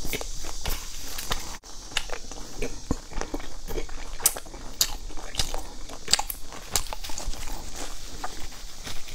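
Close-miked chewing of a fried sesame ball, with irregular crisp crunches.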